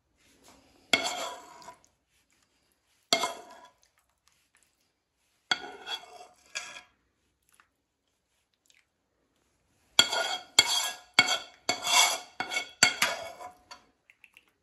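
Metal spoon scraping and clinking against a nonstick frying pan and ceramic plates while penne is served out of the pan. A few separate clinks, then a quick run of clinks and scrapes from about ten seconds in.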